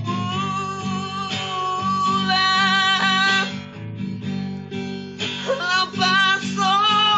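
Song accompaniment led by strummed acoustic guitar, with long held melody notes over a repeating low bass pulse.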